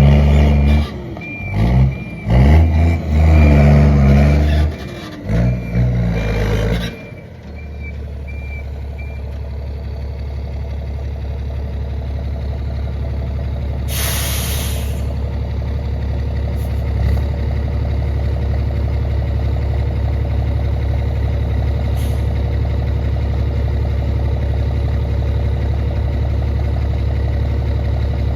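Ford Cargo 2422 turbo-diesel truck, straight-piped with a comb fitted in the turbo, revving in short bursts while maneuvering, with its reversing beeper sounding. At about seven seconds the engine drops to a steady low idle. About halfway through comes one short, loud hiss of air brake air.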